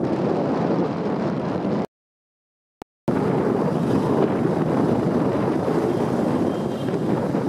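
Wind buffeting the microphone on a moving moped, a steady dull rush with the motorbike's running noise mixed in. A little under two seconds in, the sound cuts out completely for about a second, with one faint click in the gap, then the rush resumes.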